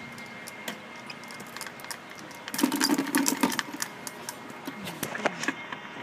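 Squirrel moving and feeding inside a clear plastic dome bird feeder: rapid irregular clicking, scratching and rattling against the plastic, busiest and loudest for about a second around the middle.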